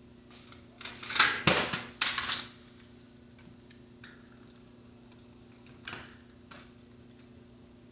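Rapid metallic clicking and rattling of a bicycle front wheel being fitted into the fork by hand, a dense burst about a second in, then a few single clicks.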